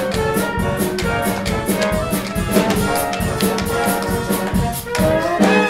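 Upbeat show-tune music with a brass band and a steady drum-kit beat.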